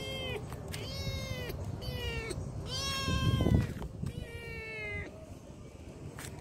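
A kitten meowing repeatedly: about five high, drawn-out meows, each falling slightly at its end, stopping about five seconds in. A brief low rumble of noise comes with the fourth meow.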